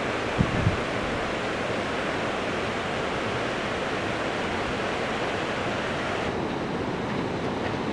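Steady rushing of a mountain stream, with two short low thumps about half a second in.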